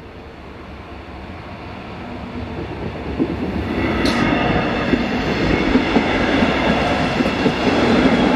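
A DB Regio double-deck passenger train approaching along the rails, growing steadily louder as it nears, with wheel-on-rail rumble and a steady high whine that comes in about halfway through. There is a brief sharp high screech about four seconds in.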